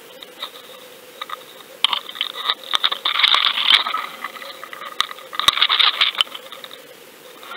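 Underwater fishing camera and its rig rattling and scraping, heard through the waterproof housing: two bursts of dense clicks and scraping over a faint steady hum.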